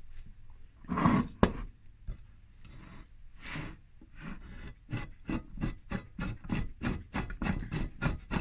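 New Alko corner steady nut being wound by hand along the steady's steel threaded bar. A few knocks as the part is handled, then from about five seconds in a quick, regular metal-on-metal rubbing of about three to four strokes a second.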